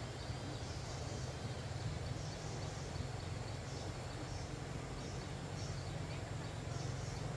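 Steady low hum with a faint high chirp repeating about once a second.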